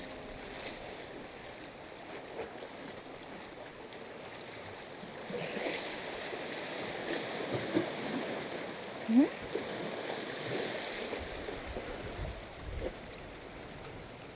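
Seawater washing and lapping against the breakwater, a steady wash. A short, rising squeak stands out about nine seconds in.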